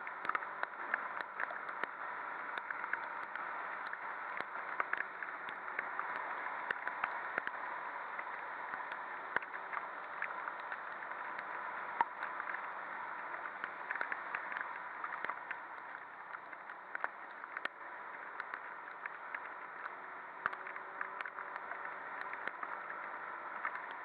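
Muffled, steady rush of a Suzuki Address 110 scooter riding at speed through heavy rain on a flooded road, with frequent irregular small ticks of raindrops striking the camera.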